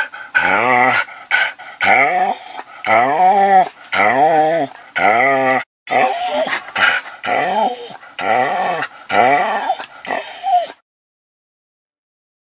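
A dog whining and whimpering in a quick series of about a dozen short calls that waver up and down in pitch. The calls stop abruptly almost two seconds before the end.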